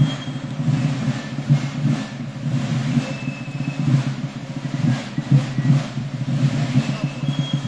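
Marching drums beating continuously in a folk military march, with a few short high fife-like notes above.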